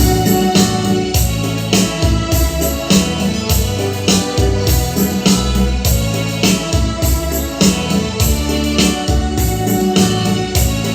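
Music with a steady beat and sustained pitched tones.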